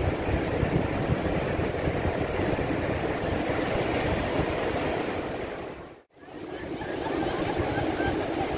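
Ocean surf washing up a sandy beach: waves breaking and running up the shore in a steady rush of water. The sound cuts out briefly about six seconds in, then fades back up.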